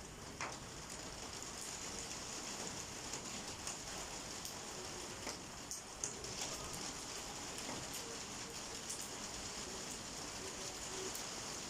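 Heavy rain falling steadily, a continuous hiss with scattered individual drops ticking on a surface.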